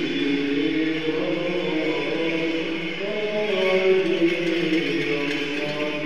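Byzantine church chanting: voices singing a slow, melismatic melody with gliding notes over a steady low held note.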